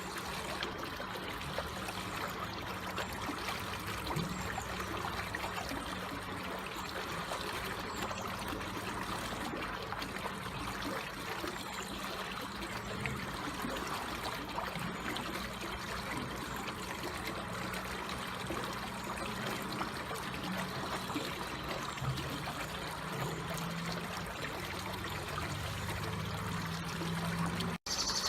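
Water flowing slowly and trickling steadily, with an even, unbroken babble. Near the end it cuts out for a split second.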